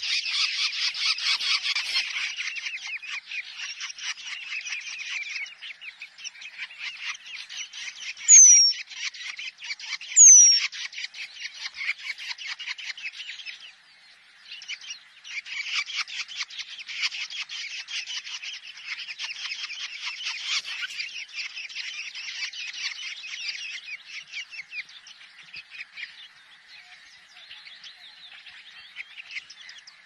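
Long-tailed shrike nestlings begging with rapid, continuous chattering calls while an adult is at the nest. The calls pause briefly about halfway through and grow quieter near the end. Two loud, short downward-sliding whistles come about eight and ten seconds in.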